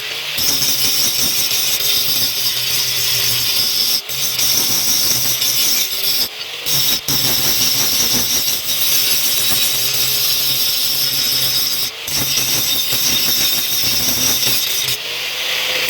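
Electric grinder running against steel: a steady, hissing grind over the motor's hum, whose pitch sags and recovers as the tool bears on the blade. It breaks off briefly a few times.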